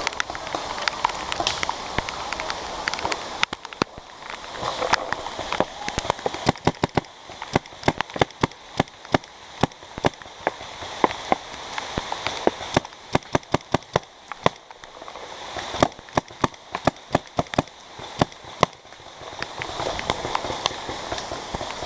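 Paintball markers firing: strings of sharp pops in quick runs from about six seconds in until near the end, over rain pattering.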